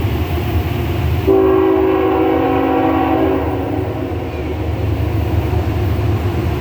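Diesel locomotive air horn on an approaching coal train, sounding one long blast of about two seconds, a chord of several notes, over a steady low rumble.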